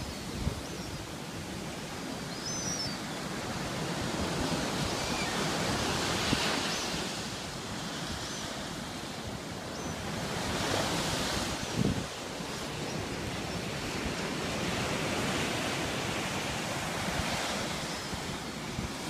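Sea surf breaking on a sandy beach: a steady wash that swells and eases every four to five seconds as waves come in.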